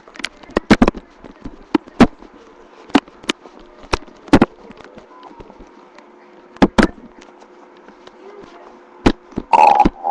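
Stomach growling: irregular sharp pops and clicks of gurgling, with a short, louder pitched growl near the end.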